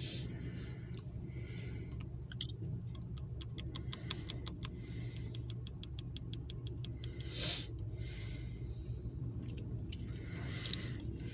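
Steady low hum inside a car cabin, with a run of rapid even clicks, about five a second, for some four seconds in the middle. About seven and a half seconds in comes a loud breath through the nose, the loudest sound here, and a softer breath near the end.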